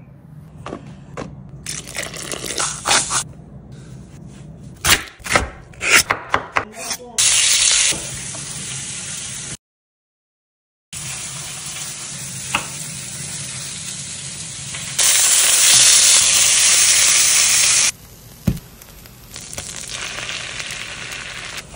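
Kitchen sounds in several short cuts: first a run of sharp knocks and clicks, then stretches of loud sizzling hiss broken by a second of silence. Near the end, melted butter and garlic sizzle in a pan as cream is poured in.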